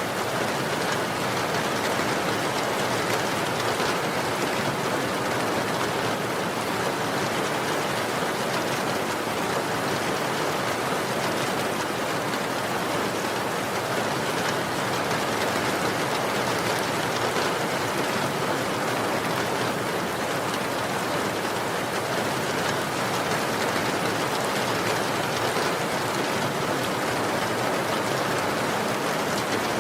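Steady, even rain falling, a dense patter of drops on surfaces with no let-up.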